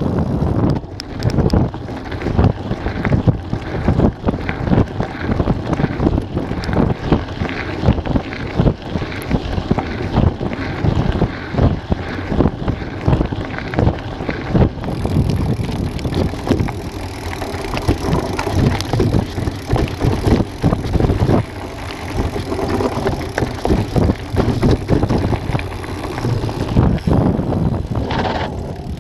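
Mountain bike ridden over a rough dirt and gravel trail: tyres crunching on stones and the bike rattling over bumps in a dense run of irregular knocks, with wind rushing over the microphone.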